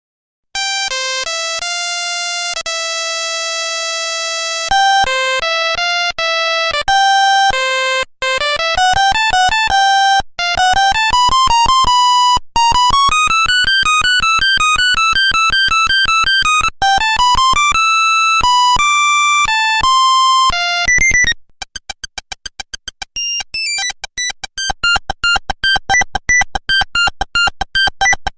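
Nokia 1100 monophonic ringtones: a single line of buzzy electronic beeps playing a melody with held notes and quick rising and falling runs. About 21 seconds in, after a short break, a different ringtone starts with fast repeated short notes.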